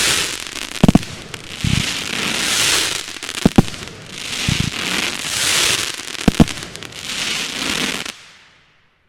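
Fireworks going off: sharp shell bursts, several in close pairs, each trailed by a long crackling hiss. The sound cuts off shortly before the end.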